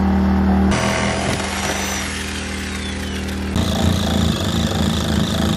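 A cordless reciprocating saw (Ryobi) cutting through the fiberglass deck, with a steady high whine over a rapid buzzing, from about three and a half seconds in. It is cutting an opening for a hatch over a hole in the hull. Before that there is a steady low hum.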